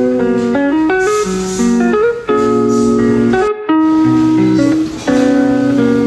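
Background music: a plucked guitar playing chords, with a short break about three and a half seconds in.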